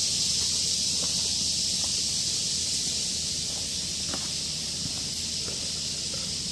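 Steady high-pitched outdoor background hiss, with a faint low hum and a few soft ticks.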